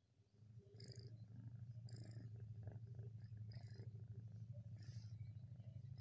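Domestic cat purring steadily, picked up close against its fur, starting about half a second in, with a few brief soft rustles.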